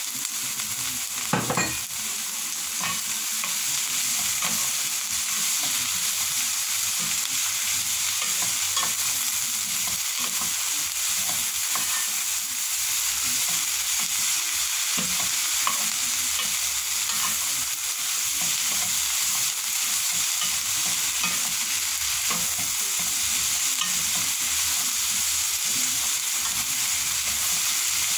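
Sliced peppers, carrots and green beans sizzling in a hot pan while a wooden spatula stirs and scrapes through them in scattered small clicks. A single sharp knock comes about a second and a half in.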